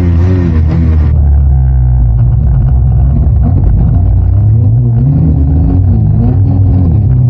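Snowmobile engine running hard through deep powder, its pitch rising and falling as the throttle is worked. About a second in, the sound turns duller.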